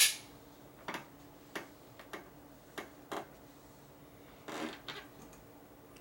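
Folding knives being handled: five light clicks and taps spread over the first three seconds, then a short sliding noise about four and a half seconds in.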